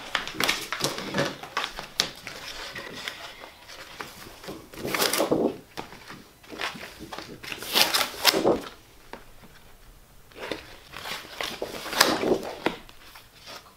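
A plastic cutting mat and sheets of vinyl being handled, peeled and laid down: irregular rustling and crackling, with several louder swishes.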